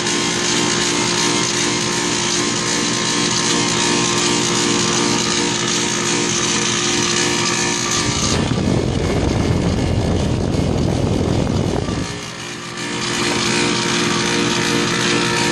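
A compressor running loud with a steady hum and hiss, a sound the uploader takes for a bad compressor. About eight seconds in it turns to a rough low rumble for roughly four seconds, then the steady hum returns.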